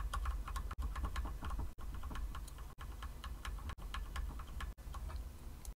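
Computer keyboard being typed on: quick, uneven key clicks, several a second, over a low hum.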